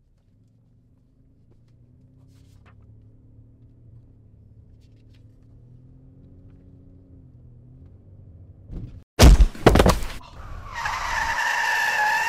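A car's low steady hum, then about nine seconds in a loud double thump of the car striking a pedestrian, followed near the end by a tyre screech lasting about two seconds.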